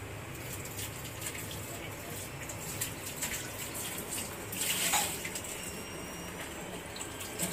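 Tap water running at a kitchen sink, with small clinks of utensils and one louder splash or gush about five seconds in.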